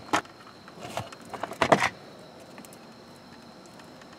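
A hand wire stripper-crimper working on an automotive wire: a sharp click just after the start, a few light clicks about a second in, then a louder short rasp of the jaws cutting and pulling insulation.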